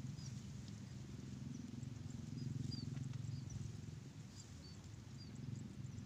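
A steady low pulsing drone, with faint short high chirps of small birds scattered throughout.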